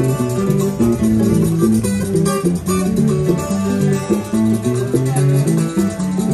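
Puerto Rican cuatro playing a seis chorreao, a quick run of plucked notes over a guitar bass line, with percussion accompaniment.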